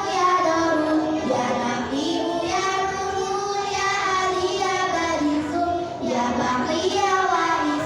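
Children singing a melody, with long held notes that glide between pitches.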